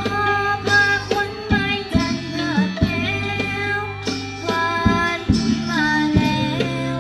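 Isan ponglang ensemble music: a voice sings a melody that slides between notes over steady low tones and repeated struck and plucked instrument notes.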